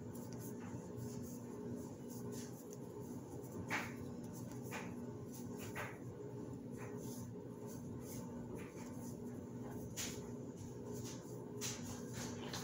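Plastic-sleeved trading cards being flipped through by hand, one at a time, giving short irregular swishes and clicks as the sleeves slide over each other. A steady low hum runs underneath.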